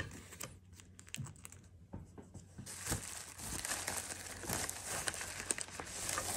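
Packaging crinkling as a graded card slab is taken out of it: a few light clicks and rustles, then steady crinkling from about halfway through.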